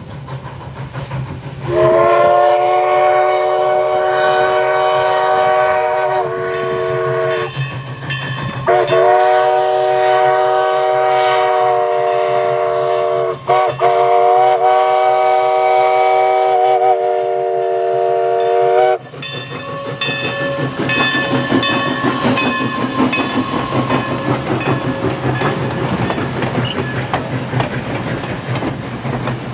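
Everett Railroad No. 11 steam locomotive's chime whistle sounding several long blasts, a few notes at once, with two short breaks. Once the whistle stops, the train runs close by with a rattling clatter of wheels and cars.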